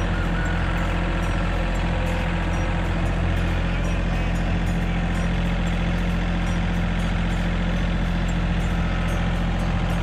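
An engine running steadily with a low, even hum.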